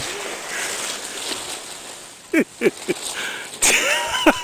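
Strong gusty wind buffeting the microphone, easing off. Then a few short voice-like calls falling in pitch, and a sudden loud blast of wind noise near the end.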